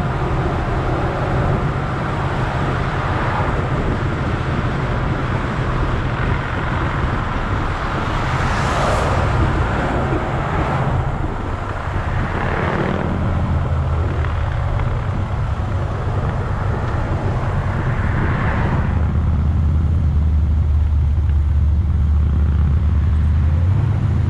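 Chevy Nova's engine and exhaust running while cruising, a steady low drone that grows louder about three-quarters of the way through. A few brief swells of noise from passing traffic rise and fade over it.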